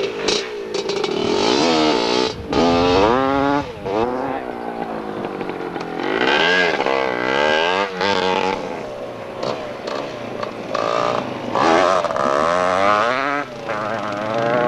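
Dirt-bike engines revving hard as the bikes power through a turn on a dirt track, the pitch rising and falling repeatedly with brief throttle chops and gear changes.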